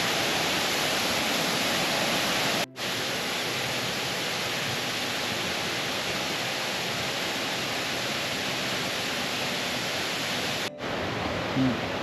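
Waterfall rushing, a steady wash of falling water, briefly cut out twice, about three seconds in and near the end.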